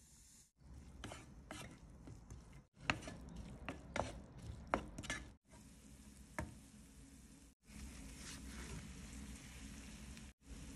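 Chopped onion sizzling in hot oil in a skillet, with a spatula scraping and knocking against the pan as it is stirred; later only the steady sizzle of frying.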